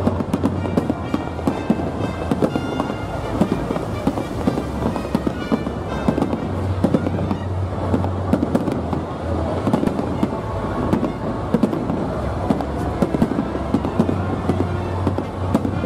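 Aerial fireworks shells bursting and crackling in a dense, unbroken barrage, many reports overlapping with no pause.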